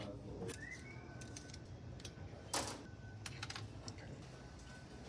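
Scattered small clicks and taps of bicycle drivetrain parts and packaging being handled on a workbench, with one louder clack about two and a half seconds in and a faint rising squeak about half a second in.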